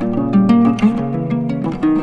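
Background music: plucked-string notes, guitar or harp-like, picked in a steady melody.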